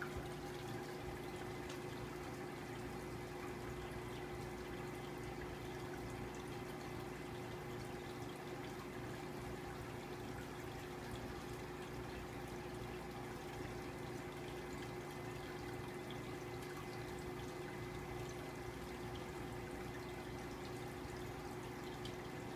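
Aquarium filter running, water trickling steadily back into the tank, over a steady hum.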